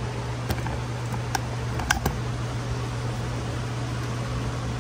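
Steady low hum of a running fan, with a few light clicks in the first two seconds as a tool is handled at a bench vise.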